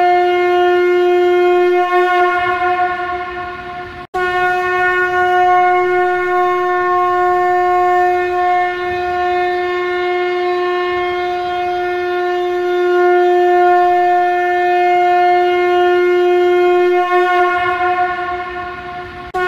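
Shankha conch shell blown as a trumpet in long, steady notes on a single pitch. One blast fades in the first few seconds and breaks off. A new blast starts right after and holds for about thirteen seconds before fading near the end.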